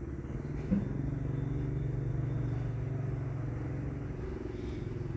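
A motor vehicle engine running nearby, a steady low hum that strengthens after a light tap early on and eases off near the end.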